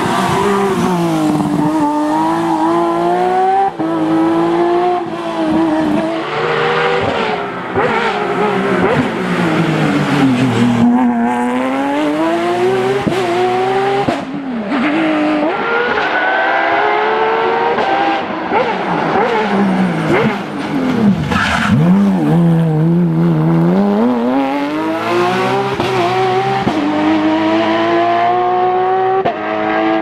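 Porsche 911 GT3 naturally aspirated flat-six rally engines at full throttle, the pitch climbing through each gear and dropping sharply on gear changes and braking, over and over as the cars pass at racing speed.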